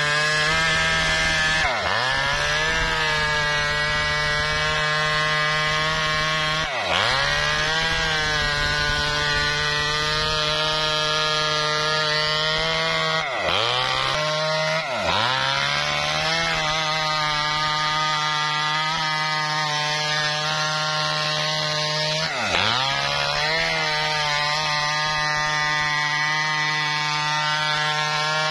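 Maestro two-stroke chainsaw running at full throttle while ripping lengthwise along a lamtoro log, with sawdust flying. The engine note holds steady and dips briefly about five times, picking straight back up each time.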